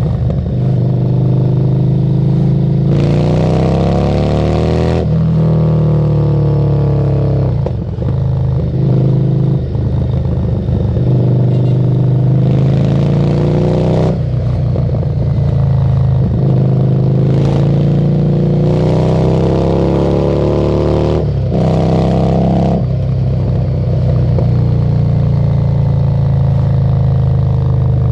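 Harley-Davidson Street 750's 60-degree V-twin running through a Screamin' Eagle exhaust while the bike is ridden. The engine pitch climbs and drops several times as the bike accelerates through the gears, with a rush of wind during the harder pulls.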